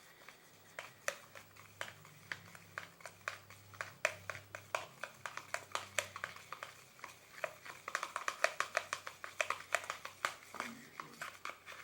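Hand kneading and squishing a sticky mixture of dish detergent and toothpaste, making many irregular wet clicks and smacks that come faster in the second half.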